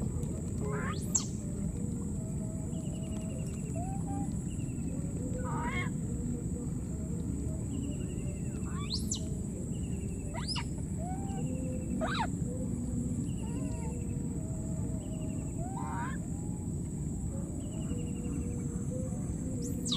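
Outdoor wetland ambience: a steady low rumble with scattered animal calls over it, short arched whistles, several sharp rising cries a few seconds apart, and repeated short chirping trills, above a steady high-pitched whine.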